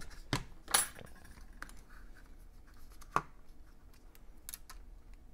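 Hands handling a replacement MacBook Air trackpad and its flat ribbon cable in the laptop's open case: light scratching with a few sharp clicks, the loudest about three quarters of a second in and another a little after three seconds.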